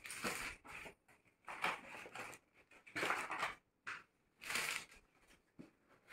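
Plastic packaging and gift wrap crinkling and rustling in about five irregular bursts as gift packages are handled and a box is opened.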